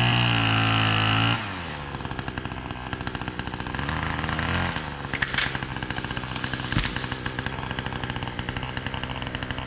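Chainsaw running at high revs for about a second and a half, then dropping to a lower, pulsing idle, with a brief rev around four seconds in and a few sharp knocks.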